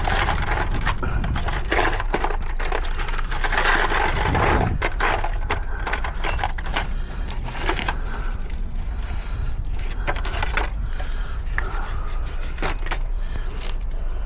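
Irregular clinks, rattles and scrapes of metal tools and fittings being handled, over a steady low rumble.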